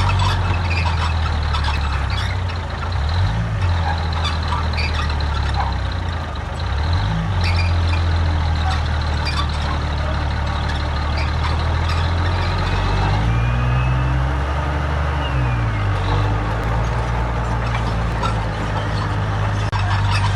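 Heavy diesel engine of an earthmoving machine running hard, its pitch dipping and climbing several times as the load changes. A steady high whine runs along with it and stops about two-thirds of the way through.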